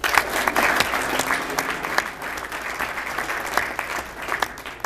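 A small audience clapping, starting suddenly and thinning out near the end.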